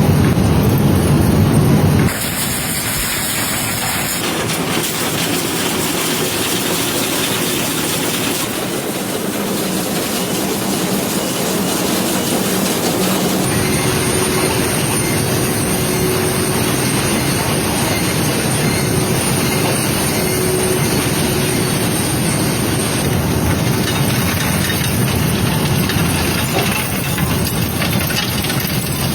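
Steady clattering, hissing machine noise from a bangle factory, changing abruptly several times as one machine's sound gives way to another.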